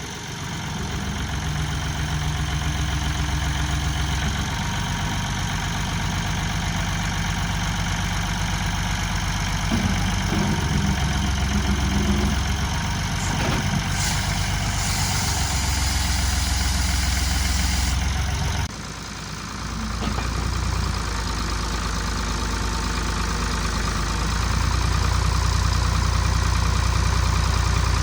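Ford diesel backhoe engine running steadily, its low note changing several times. There is a brief hiss a little past the middle, and the level dips briefly at about two-thirds through.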